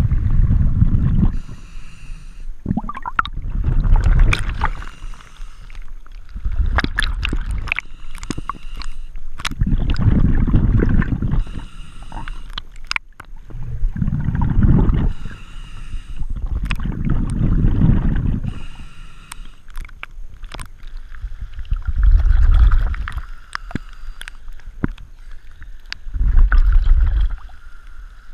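Scuba diver breathing through a regulator, heard through a helmet-mounted camera housing under the diver's hood: a hiss on each inhale alternating with the low bubbling rumble of exhaled air, a breath about every three to four seconds, with small clicks and bubble pops. In the last several seconds the regular breathing gives way to water sloshing at the surface.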